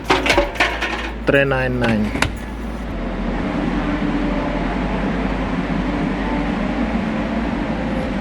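A man's voice saying a price, then a steady hum and hiss of shop background noise with a faint steady tone.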